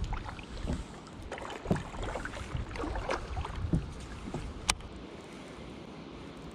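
Irregular soft knocks and thumps from gear being handled while fishing, with one sharp click a little past the middle, over a faint wind rush.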